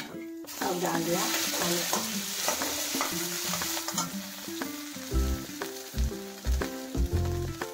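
Mashed boiled potato sizzling as it hits hot spiced oil in an iron kadai, with the sizzle starting about half a second in. A steel spatula stirs and presses it, and from about five seconds in there are repeated low knocks and scrapes of the spatula against the pan.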